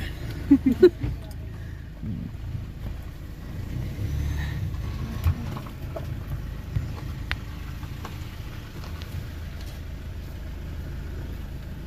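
Car driving slowly, heard from inside the cabin: a steady low engine and road rumble, with a few brief voice sounds and clicks near the start.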